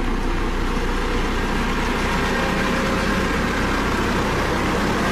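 Dynapac CC522 tandem asphalt roller's diesel engine running steadily with a deep, even hum.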